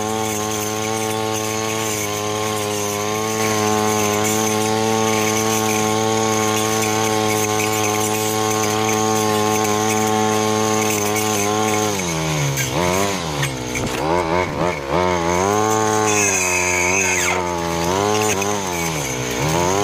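Freshly overhauled Honda GX35 four-stroke brush cutter running at high speed while cutting thick weeds. The engine note holds steady at first, then from about twelve seconds in it rises and falls over and over as the throttle is worked and the cutter meets the growth.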